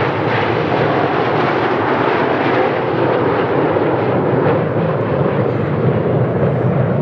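Jet engine noise from the Red Arrows' BAE Hawk T1 jets flying the display: a loud, steady rushing sound that holds without rising or falling.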